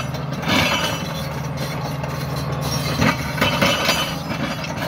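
Case crawler dozer's diesel engine running steadily under load, with its steel tracks clanking and several sharp knocks and scrapes, about half a second in and again around three seconds in, as its rear ripper tooth tears through rocky ground.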